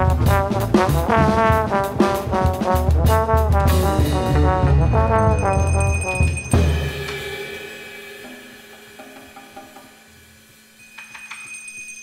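Free-improvised jazz: a trombone plays fast, busy lines over a drum kit and hand percussion. About six and a half seconds in the band stops on a struck accent and the sound dies away to a quiet passage, then near the end a struck metal percussion instrument rings with a high, sustained tone.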